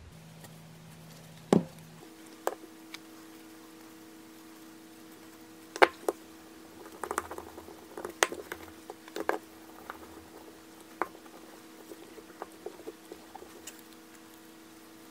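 Gloved hands handling a steel hatchet head on a paper towel: scattered taps and clicks of the metal and bottle being set down and picked up, with paper rustling as the head is wiped. A faint steady hum runs underneath.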